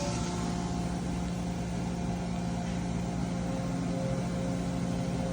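Mazak VCS-410A CNC vertical machining center running a program and cutting Kovar, a nickel alloy: a steady machine hum with a few held tones, no change in level.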